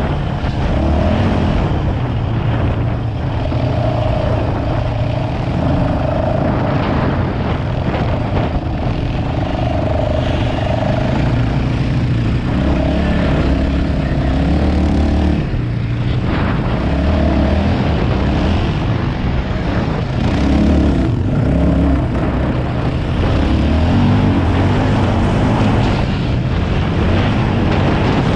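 ATV engine running hard while riding through soft sand, its note rising and falling with the throttle.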